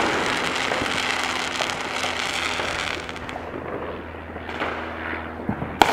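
Fireworks: the aftermath of an aerial burst, a dense spray of small crackling pops that fades over the first few seconds, then one sharp bang near the end.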